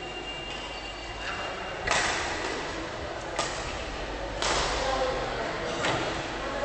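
Badminton rackets striking the shuttlecock in a rally: four sharp hits about a second or a second and a half apart, each with a short echo in a large hall, over a steady murmur of voices.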